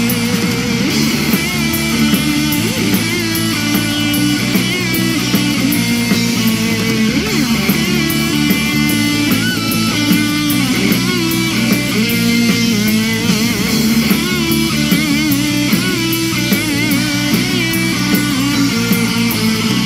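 Rock music with guitar over a steady drum beat, playing continuously.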